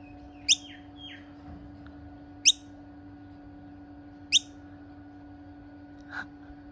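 Noisy miner fledgling calling: three short, sharp, high calls about two seconds apart, with a few fainter chirps just after the first. A steady low hum runs underneath.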